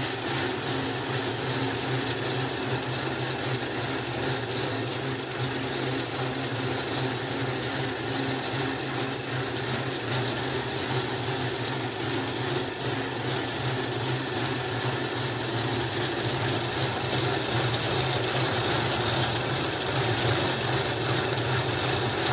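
Belt-driven bobbin winding machine running steadily, winding muga silk yarn onto bobbins: an even mechanical hum.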